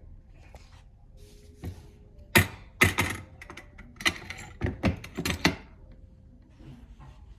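A quick, uneven series of sharp knocks and clatters, about nine in four seconds, the loudest around the middle, with quiet room tone before and after.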